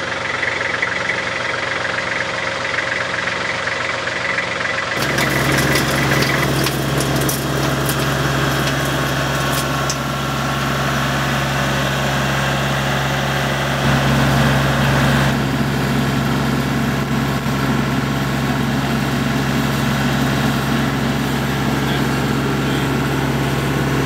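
Tractor engine driving a PTO wood chipper, running steadily. About five seconds in the sound changes abruptly to a louder, deeper hum, with a few seconds of sharp clicks and crackles just after.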